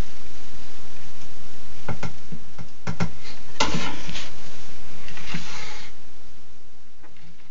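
Scattered sharp clicks and knocks, with a denser crackling stretch about three and a half seconds in: a bearded dragon snapping up and crunching a cricket, with the feeding tongs knocking against the dish and glass.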